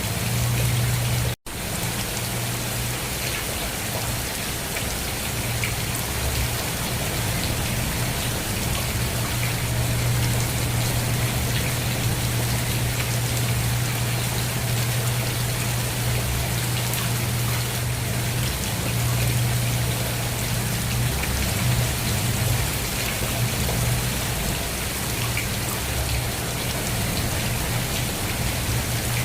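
Steady rainfall, an even hiss of drops with a steady low hum underneath. There is a momentary dropout to silence about a second and a half in.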